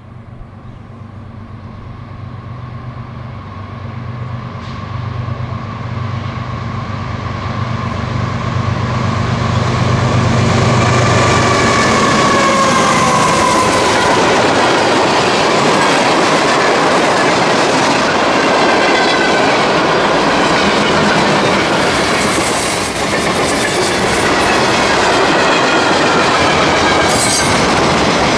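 CSX freight train approaching and passing close by. The lead diesel locomotives' engine drone grows louder over the first ten seconds, and their tones slide down in pitch as they go by. Then the freight cars roll past steadily with a clickety-clack of wheels on the rails.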